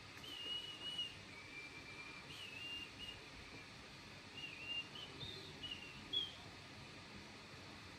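A person whistling softly through pursed lips, a wandering tune in two phrases with a short pause about halfway, over faint steady hiss.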